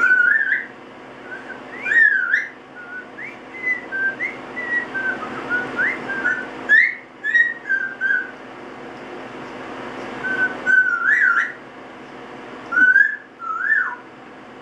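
Double yellow-headed Amazon parrot whistling a tune in short phrases of sliding notes, with pauses between them.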